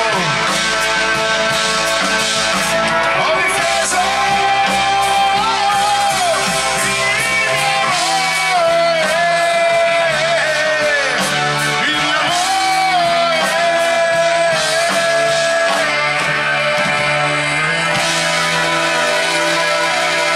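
Live rock band with electric bass, drums and electric guitar. Over it a harmonica, cupped to the microphone, plays a lead of long held notes that bend and slide in pitch.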